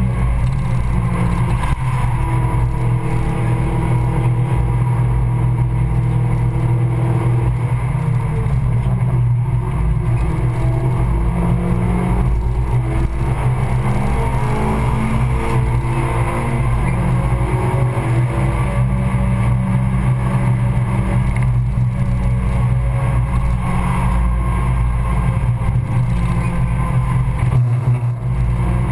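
Suzuki Swift Sport Stage 2's four-cylinder engine running hard under track driving, heard from inside the cabin over tyre and wind noise. The engine note changes pitch as the revs rise and fall through the corners and gear changes.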